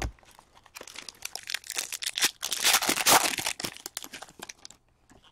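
A foil hockey card pack being torn open and its wrapper crinkled in the hands, in rustling bursts that peak about halfway through and stop shortly before the end. A soft knock comes at the very start.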